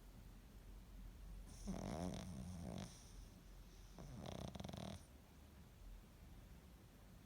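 Snoring: two snores, each a second or so long, the first about a second and a half in and the second about four seconds in.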